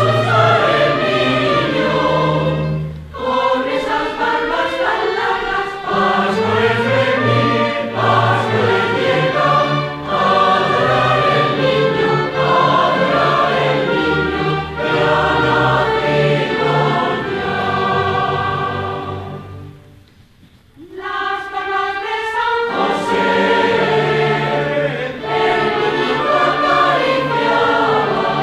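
Mixed choir of men's and women's voices singing in parts, with a short pause between phrases about two-thirds of the way through.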